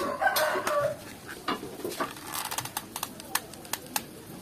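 Hot glue gun being worked against a plastic toy rifle stock: a run of short, sharp clicks and taps from the trigger feed and the plastic being handled. A brief pitched, wavering sound comes first.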